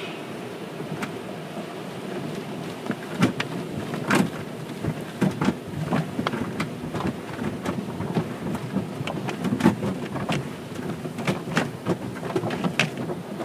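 Automatic car wash heard from inside the car: water spray drumming on the body and glass over a steady rushing, with cloth wash strips slapping irregularly against the car from about three seconds in.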